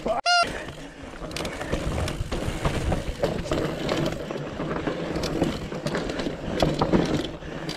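Mountain bike rolling over a rocky trail: tyres crunching over rock and dirt, with a steady rattle and many small knocks from the bike. A short high squeak comes about a third of a second in.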